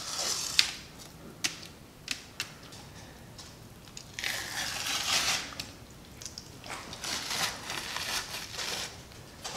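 Membrane being pulled and peeled off the back of a raw rack of baby back ribs by hand: tearing and rustling sounds in two stretches, from about four seconds in and from about seven seconds in, with a few sharp clicks in the first couple of seconds.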